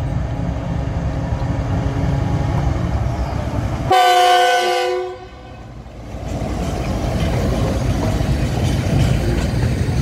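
Pakistan Railways GEU-40 diesel locomotive 9020 rumbling past close by. About four seconds in it sounds a sudden, very loud horn blast, a chord of several tones held for about a second. Then the freight wagons rumble and clatter past.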